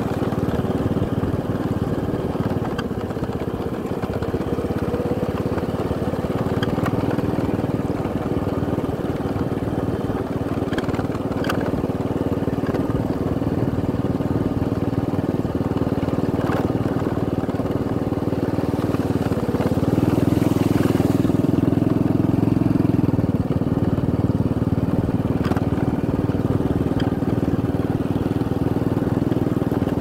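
Motorcycle engine running steadily while riding along a rutted dirt track, with a few faint knocks along the way. The engine grows louder for a few seconds about twenty seconds in.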